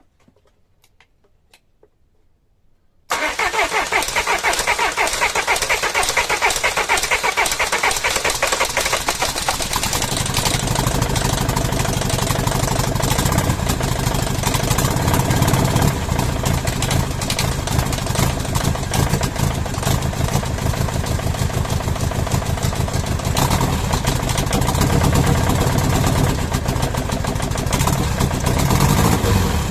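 Mercedes OM611 four-cylinder common-rail diesel engine firing up suddenly about three seconds in, after near silence, and then running steadily. This is its first start after new injectors were fitted, and the owner says one injector is still faulty.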